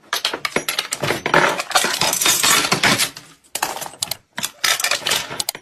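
Rapid, irregular clattering and clinking of hard objects knocking together, many sharp knocks in quick succession with a few short gaps.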